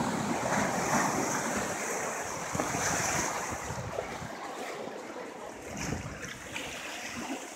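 Ocean waves washing on a rocky shore, a steady rushing noise, with wind on the microphone.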